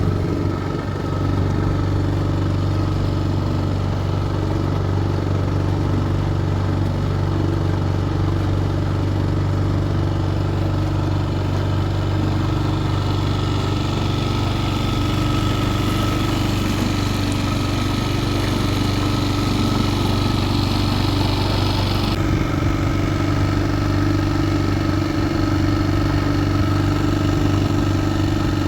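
A small boat's engine running steadily at an even speed. About three-quarters of the way through, a higher hiss above it drops away suddenly.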